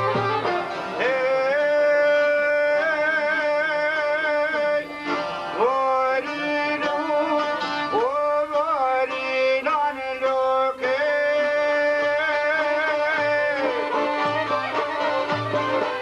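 Traditional Balkan folk music: a man singing long, wavering held notes over plucked long-necked lutes.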